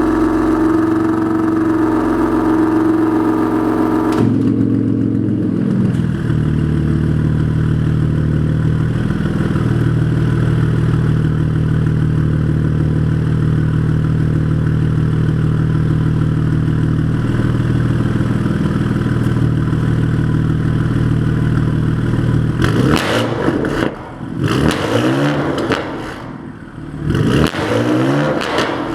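BMW S55 twin-turbo straight-six running through an aftermarket exhaust: held at raised revs for about four seconds, then dropping to a steady idle, then revved repeatedly in quick blips near the end.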